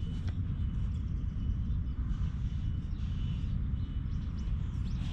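Wind buffeting the action camera's microphone, a steady low rumble, with a faint thin high tone now and then.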